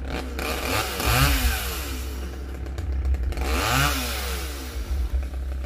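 Chainsaw engine revved up and back down twice, about three seconds apart, over a steady low rumble.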